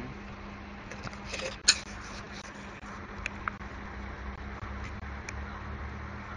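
Steady low hum and hiss of room noise, broken by a few short sharp clicks: the loudest about two seconds in, two fainter ones about a second and a half later.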